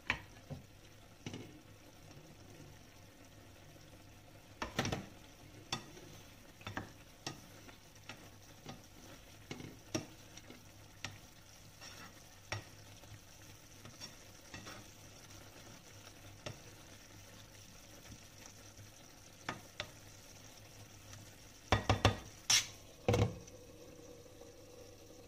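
A plastic spoon stirring pork in a simmering sauce in a frying pan, with scattered scrapes and taps against the pan over a faint steady sizzle. Near the end, a quick cluster of louder clinks as the glass lid is set back on the pan.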